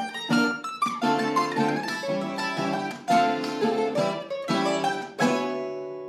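Colombian bandola and tiple duet playing the closing bars of a bambuco: quick plucked melody over strummed chords, ending on a final chord about five seconds in that rings out and fades.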